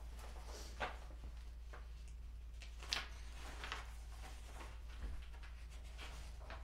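Sheets of paper rustling and being handled on a table, a few short scattered rustles and light knocks, over a steady low hum.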